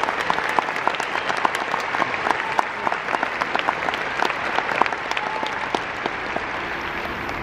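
Crowd in the stands applauding, a dense patter of clapping that thins out near the end.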